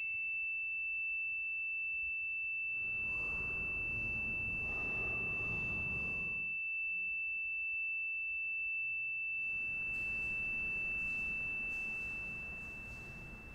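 A steady, high, pure tone held without change, fading away near the end. Under it a soft hiss swells up twice and dies down.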